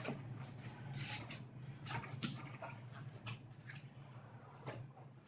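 Old rubber bicycle inner tube being pulled out of the tyre and rim: a few short, scattered rubbing and scuffing noises over a steady low hum.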